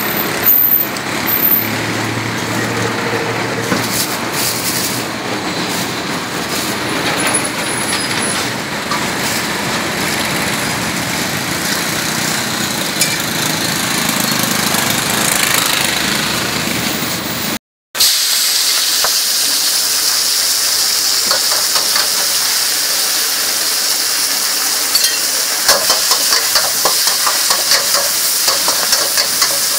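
Steady street traffic noise for the first part. After a sudden cut, a steady hiss of stir-frying over a gas burner, with a metal spatula scraping and clanking in the wok in quick repeated strokes near the end.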